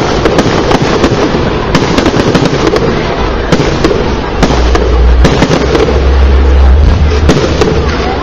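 Aerial fireworks bursting in a rapid, near-continuous barrage of booms and crackles, with the heaviest booming about six to seven seconds in.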